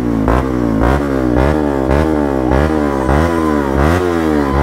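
Bajaj Pulsar RS200 with a loud exhaust, revved in quick regular throttle blips, about two a second, its pitch rising and falling each time.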